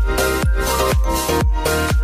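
Upbeat electronic dance music with a steady kick drum, about two beats a second, under repeating synth notes.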